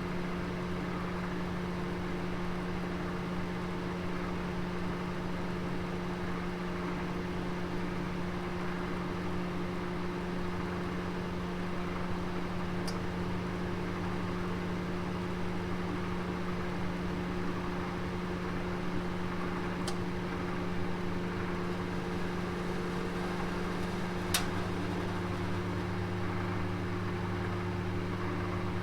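Oven running with a steady hum. A few faint ticks sound through it, the sharpest about 24 seconds in, and a lower hum joins at about the same time.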